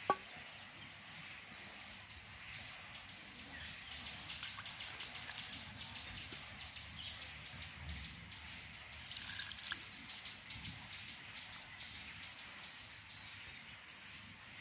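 Water poured from a terracotta pot into a clay bowl of rice flour and worked by hand into a thin batter, with wet splashing and dripping in quick repeated strokes. A single sharp knock, likely the clay bowl, right at the start.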